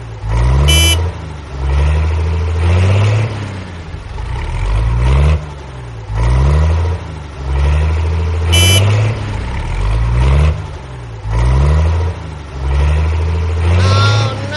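Tractor engine sound effect dubbed over a toy tractor: a low, loud chugging that surges in a regular cycle about every second and a half, with two brief high beeps and a wavering pitched call near the end.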